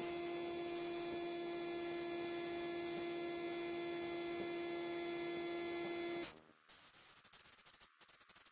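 A steady electrical hum, one pitched tone over a faint hiss, cutting off suddenly about six seconds in.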